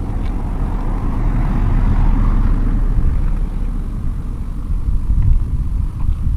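Heavy low wind rumble on the microphone over a vehicle engine running, with a rise in the engine's tone about one to three seconds in.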